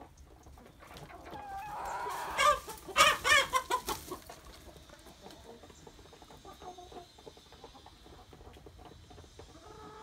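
Chickens and roosters clucking, with one loud run of rapid pitched calls from about two to four seconds in, then quieter scattered clucks.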